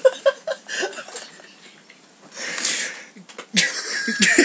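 Young men's voices making laughing, breathy vocal noises, with a longer hissing noise a little past halfway and a louder burst of voice near the end.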